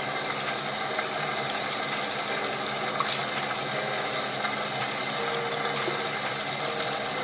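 Water running steadily in a bathroom, an even rush.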